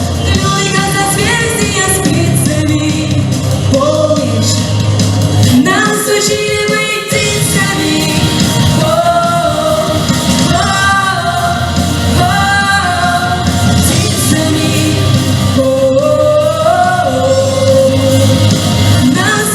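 A song with a lead vocal over a full band backing, with a steady beat and bass; the singer holds and slides between long sung notes.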